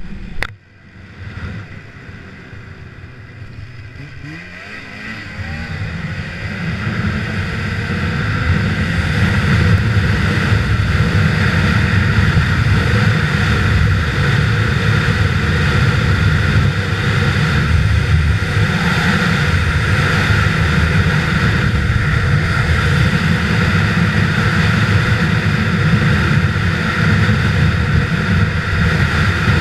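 Snowmobile engine revving up and pulling away, getting louder over the first eight seconds or so, then running steadily at speed.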